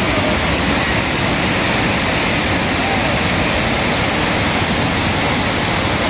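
Waterfall and whitewater rapids rushing steadily, a dense unbroken noise of falling and churning water.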